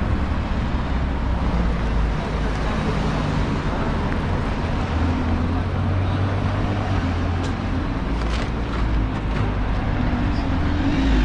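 Street traffic at a junction: cars and a double-decker bus driving past, a steady low engine rumble that grows heavier about halfway through.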